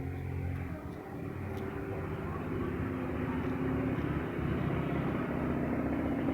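Diesel engine running, its sound growing louder and a little higher over the first few seconds and then holding steady.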